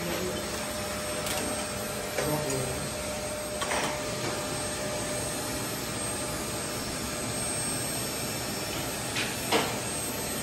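Steady machine whooshing noise, like a blower or vacuum, with a few sharp knocks scattered through it, the loudest near the end.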